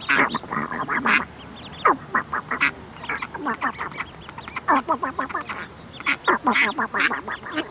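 Ducks quacking in bursts of quick, harsh quacks, several runs of rapid calls with short pauses between them.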